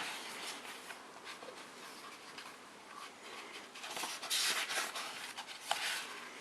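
Paper rustling and soft handling sounds from a hardcover book being handled. The rustling is louder for about a second, four seconds in, and again briefly near the end.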